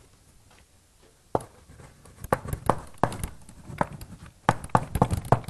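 Writing on a board: after a quiet first second or so, a run of irregular sharp taps and clicks, growing more frequent and louder toward the end.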